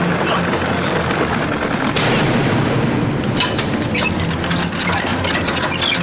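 Loud action-scene sound effects: a dense, continuous booming din, with a quick run of sharp cracks in the second half.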